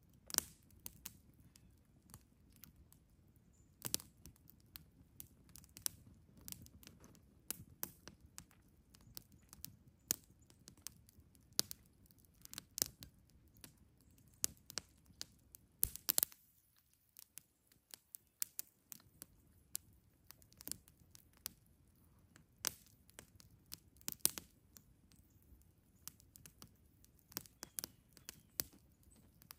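Small wood campfire crackling, with irregular sharp pops and snaps a few times a second.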